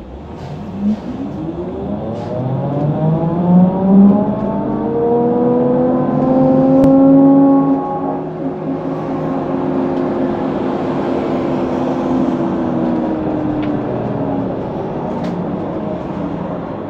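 HESS Swisstrolley 4 trolleybus's electric drive whining as the bus pulls away. The pitch climbs over the first few seconds, holds steady, then falls away near the end as the bus slows.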